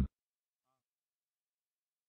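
Near silence: a synthesized voice cuts off at the very start, then dead digital silence.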